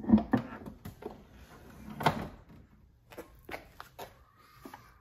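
Rear engine lid of a Porsche 911 Turbo being unlatched and raised: a loud clunk right at the start, another knock about two seconds in, then a few lighter clicks and handling sounds.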